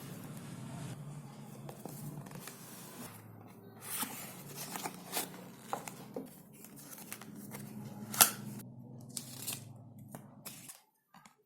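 Packaging being handled and opened: rustling and tearing with sharp crinkles and clicks, the loudest snap about eight seconds in, over a steady low hum that cuts off abruptly near the end.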